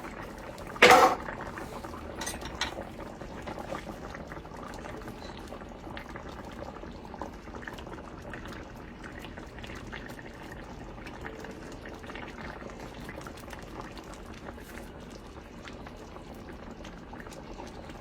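Onion and mushroom gravy with hamburger steaks simmering on low heat in a cast-iron skillet: a steady soft bubbling with fine pops. A sharp clink about a second in, with a few lighter clicks just after.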